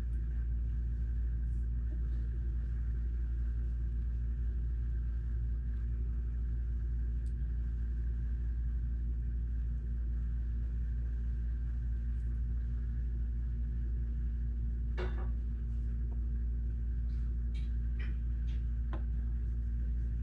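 Steady low hum, with a few light clicks in the second half.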